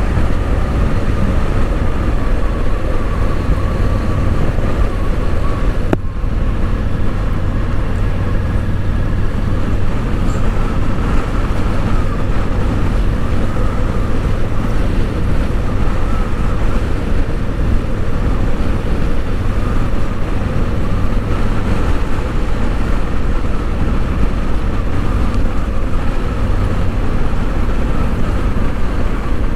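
Motorcycle on the move at steady speed: continuous wind rush on the microphone over engine and road noise.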